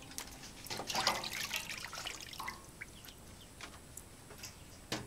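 Wet fish being handled and laid on leaves in a woven basket: soft wet slaps and drips, busiest about a second in, then scattered ticks and a sharp click near the end.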